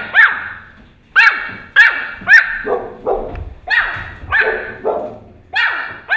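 Pomeranian puppy barking: about ten short, high-pitched yapping barks in quick succession, a few of them lower-pitched.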